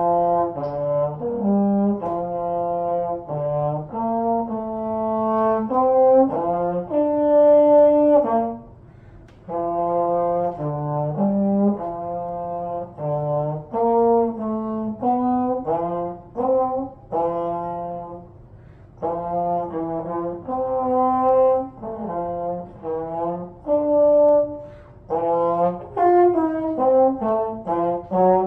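Trombone played solo and unaccompanied: a melody of mostly held notes, in phrases separated by two short pauses.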